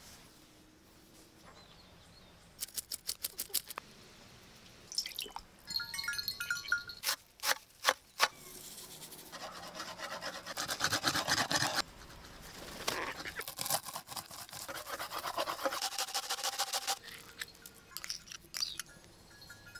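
Hand food-preparation sounds of a Caspian kutum fish and its stuffing being made ready: a run of quick scraping strokes, a few sharp knocks about halfway through, then long stretches of wet rubbing and scraping as the fish is cleaned and thick fruit paste is scraped from a bowl with a spoon.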